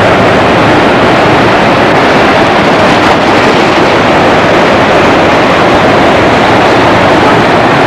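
Fast-flowing mountain river rushing over rocks: a loud, steady wash of water.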